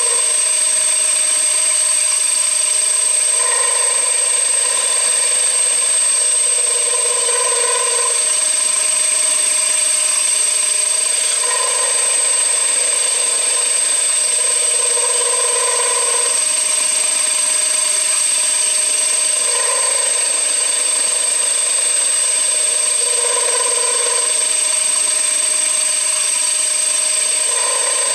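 CNC machine running, with a steady high whine and a lower motor tone that returns about every four seconds as the machine works through repeated passes.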